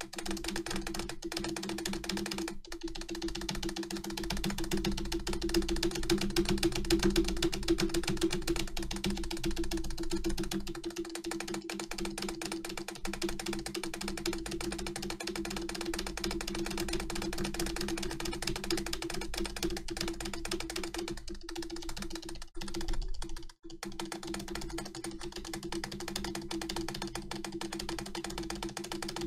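Keyboard spacebar pressed very rapidly with fingers of both hands, about seven clicks a second, making a fast, continuous clatter of key clicks. There are a few brief breaks a little past twenty seconds in, and a steady low hum runs underneath.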